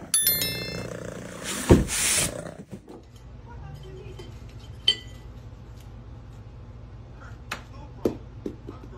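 A cat pawing at a ceramic cup on a wooden dresser: a few light clinks and taps over a steady low hum. Near the start there is a short burst of ringing tones, then a loud thump in a rush of noise.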